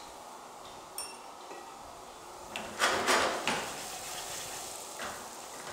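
Wooden spatula stirring diced potatoes in a nonstick frying pan, with a loud scraping, rustling burst about three seconds in that eases into softer stirring. A light clink about a second in.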